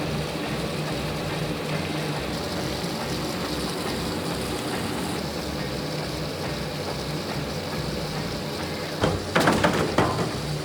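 Motorised Lego Technic truck driving on a running treadmill: a steady mechanical whir and hum from the motors and belt. Near the end, a burst of clattering plastic knocks.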